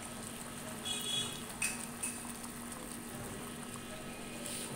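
Thin fish-and-brinjal curry boiling steadily in a pot on a clay stove as its gravy boils down, with a short metal clink from the ladle against the pot about a second and a half in.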